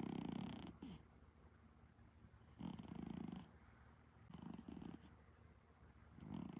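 Exotic Shorthair cat snoring: a raspy, buzzing snore with each breath, about every two seconds, with quiet gaps in between.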